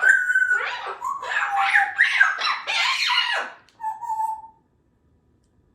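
Congo African grey parrot vocalizing: a held whistle, then a run of chattering calls with rising and falling pitch glides lasting about three and a half seconds, followed a little later by a short steady whistle.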